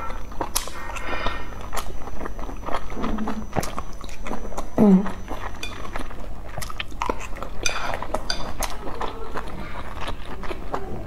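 Close-up chewing and mouth sounds of eating soft boiled dumplings, with chopsticks clicking against a metal dipping-sauce bowl. About five seconds in, a brief hum of the voice falls in pitch.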